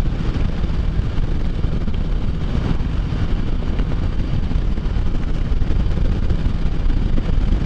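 Can-Am Spyder three-wheeled motorcycle cruising at road speed: steady wind rush on the microphone over a low rumble of engine and road.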